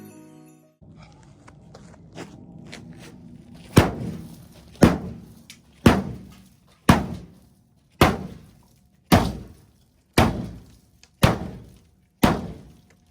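A few light clicks, then a steady series of heavy knocks, about one a second and nine or ten in all, each ringing out briefly.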